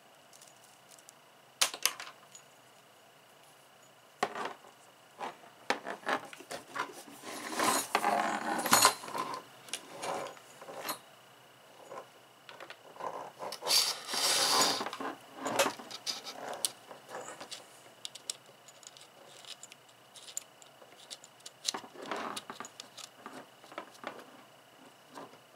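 Handling noise as a soldering rework station and its cables are taken out of their packaging: scattered clicks and light clinks, with two longer stretches of rustling about a third of the way in and again just past halfway.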